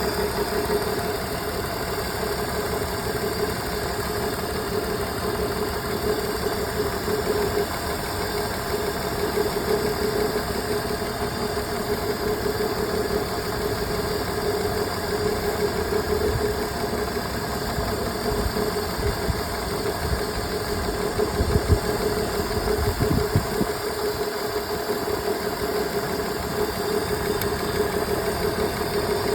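BMW E46 engine idling with a misfire. A steady hum runs throughout, with a brief low thump about two-thirds of the way through.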